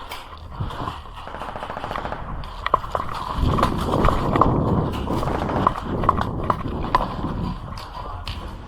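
Airsoft guns firing during a game: scattered sharp single shots at irregular intervals, over a low rumbling noise that swells around the middle.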